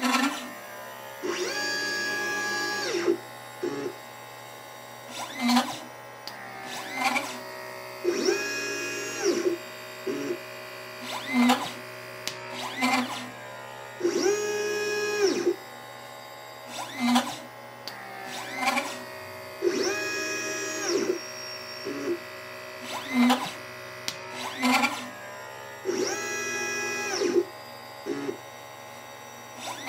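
LitePlacer pick-and-place machine's stepper motors whining as its head moves, in a cycle that repeats about every six seconds. Each cycle has one longer move of a second or so, its pitch rising at the start and falling at the end, between several short quick moves and blips, as the machine picks and places small capacitors and resistors.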